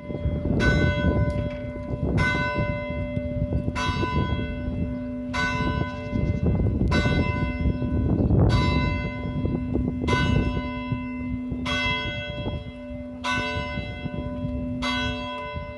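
A church bell tolling steadily, struck about every second and a half, about ten strokes, each ringing on into the next. A loud low noise runs underneath.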